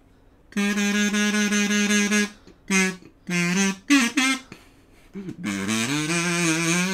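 A kazoo playing an anime opening melody: a run of quick repeated notes, a few short notes, a brief pause, then a longer held phrase with a slide in pitch.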